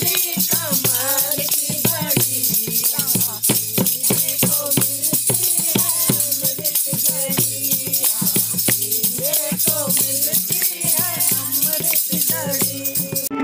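Devotional folk song: a man's voice sings a wavering, ornamented melody over a hand-played rope-tuned barrel drum (dholak) beating a steady rhythm. A jingling wooden clapper and small hand-held cymbals add a continuous rattling shimmer.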